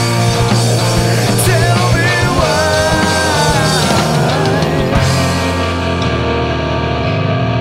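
Recorded rock music from a band. About five seconds in, the drum hits and cymbals drop away, leaving held notes.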